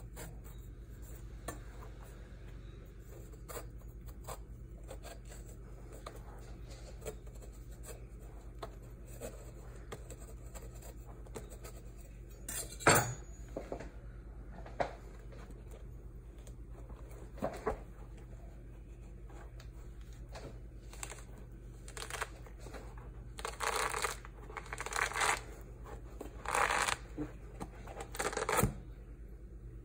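Knife cutting and scraping through a pomelo's thick rind, with light scattered taps and a sharp knock about halfway through. Near the end comes a run of short rasping strokes.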